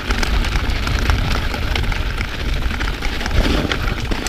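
Mountain bike rolling fast over a packed-snow trail, with a continuous low wind rumble on the microphone and the crunch and rattle of tyres and bike over the snow.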